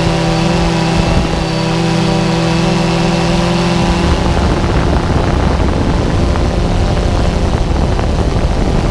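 Electric motor and pusher propeller of a Bixler RC plane running steadily in flight, heard close up from the onboard camera. About four seconds in, the steady hum breaks up into a rougher, noisier sound.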